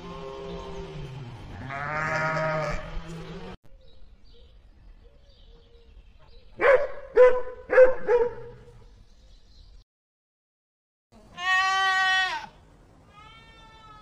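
A sheep bleating for about three seconds, then three sharp dog barks in quick succession, then a goat bleating twice, the second call weaker. The sounds come in separate edited clips with abrupt cuts between them.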